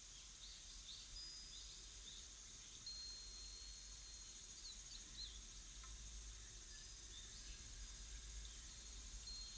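Faint birdsong: scattered short chirps and a few thin, held whistled notes over a steady high hiss and a low rumble.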